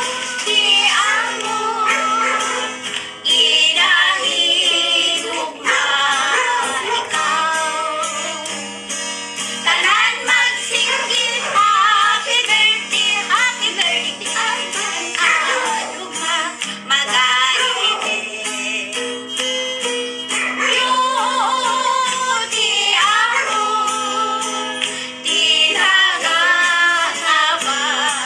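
Elderly women singing together in phrases, accompanied by an acoustic guitar that one of them plays.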